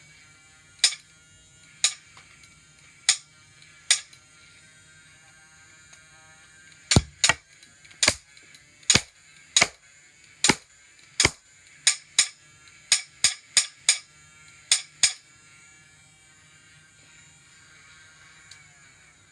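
About twenty sharp, loud snaps. Early on they come singly, about a second apart, then in quicker runs in the middle, over a faint steady hum made of several tones.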